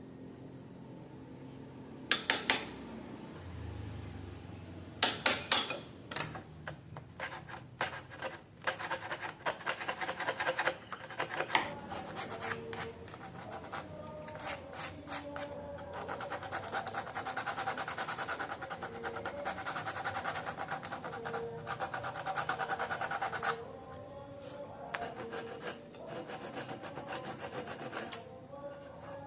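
Rapid hand-worked rasping and rubbing strokes of a file or abrasive on the workpiece, with a few sharp clicks about two and five seconds in and a long unbroken run of quick strokes in the middle.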